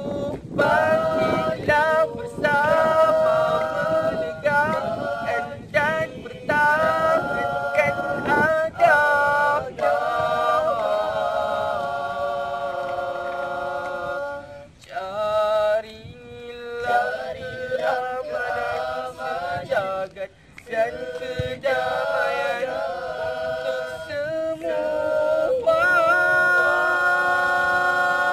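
A group of boys singing a nasyid a cappella in close harmony, several voice parts sliding between notes and holding chords, with short breaks about halfway through.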